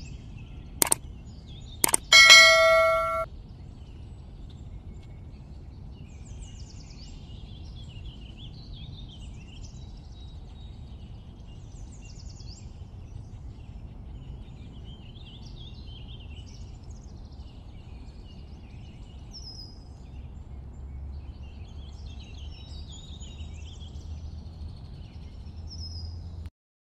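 Two light knocks, then a loud metallic clang that rings for about a second, as of a metal object being struck. Birds chirp throughout over a steady low outdoor background noise.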